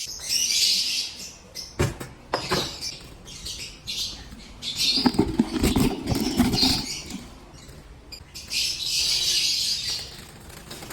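Young lovebirds giving harsh, hissing calls in several bursts, with knocks and rustling from the birds being handled in between.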